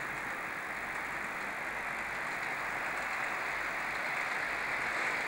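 HO scale model train running along the layout track: a steady running noise that grows a little louder about five seconds in as the train passes close by.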